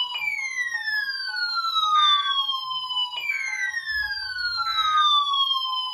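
Several NOAA weather radios sounding their alert alarms together for a received Required Weekly Test: a siren-like tone falling in pitch, restarting about every three seconds, over a rapid two-tone beeping.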